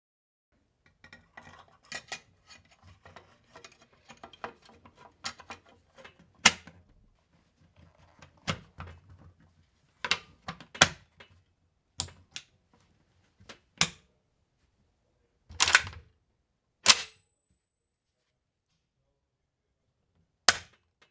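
Metal parts of an SVD Dragunov rifle being handled during disassembly: a run of light clicks and rattles, then a series of sharp separate clacks a second or more apart, one with a brief faint ring.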